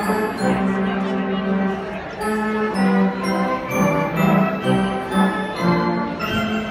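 Robert Morton theatre pipe organ playing full sustained chords over a bass line that changes every half second or so, with sharply struck high notes coming in several times.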